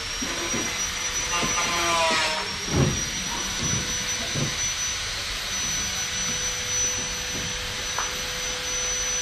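A machine running steadily with a high-pitched whine over a hiss, with a few dull knocks about three to four and a half seconds in.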